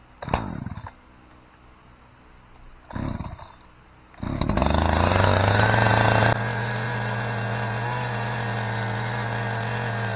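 Two-stroke chainsaw being pull-started: short pulls on the starter cord, the engine catching about four seconds in and then running steadily at high speed, settling a little lower about two seconds later.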